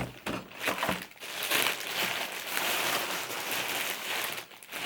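Packaging crinkling and rustling in uneven bursts as an item is unwrapped by hand.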